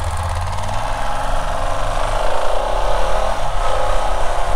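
Husqvarna 701's single-cylinder engine pulling away from a stop and accelerating, its note climbing as it gathers speed, with wind rushing over the helmet microphone.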